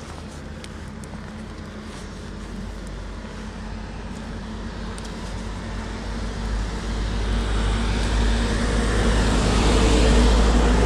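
A car approaching on the road, its engine hum and tyre noise growing steadily louder through the second half.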